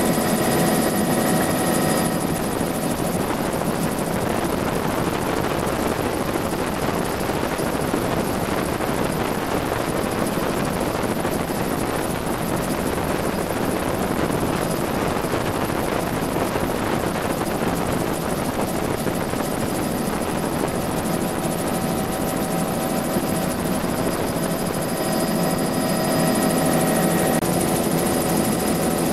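Bell 206 JetRanger helicopter in flight, heard from inside the cabin with the doors off: steady rotor and turbine noise. A steady whine is clearest for the first two seconds and again near the end; in between, an even rushing noise covers it.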